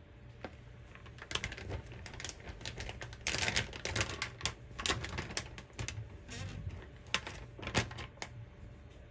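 Irregular light clicks and knocks of hands handling things at a kitchen counter, with a busier cluster a little after three seconds in.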